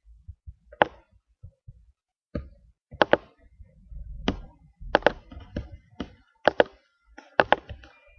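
Irregular sharp taps and knocks, a few at first and then more closely spaced in the second half, with low muffled thumps between them.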